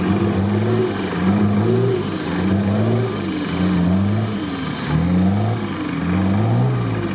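Off-road vehicle engine revving up and down in a steady rhythm, about once a second, during a winch recovery of a truck stuck in a muddy rut.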